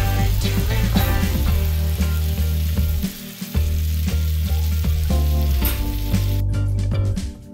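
Beef, tomato, onion and green pepper sizzling in a frying pan on a gas burner, over background music; the sizzle drops away shortly before the end.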